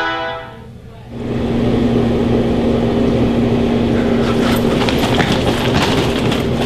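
A steady, loud mechanical hum with a noisy rush, starting about a second in, joined by irregular rattling clicks from about four seconds in.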